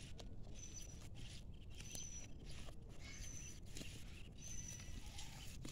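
Goat grazing on dry stubble: small crunching and tearing sounds as it crops the grass, over a low steady rumble, with a short high chirp repeating about every second and a half.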